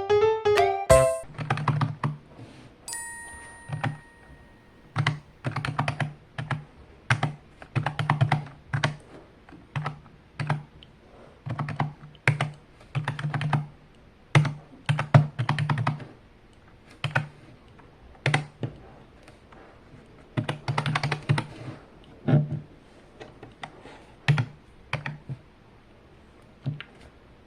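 Keyboard-style keys of an EATES DC2133 calculator being pressed one after another in an uneven rhythm, each press a sharp click-clack.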